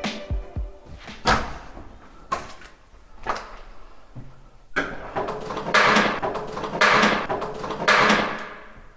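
Demolition work on a bathroom wall: a string of sharp knocks and thuds, then, from about five seconds in, several longer rough scraping sounds of rubble being moved.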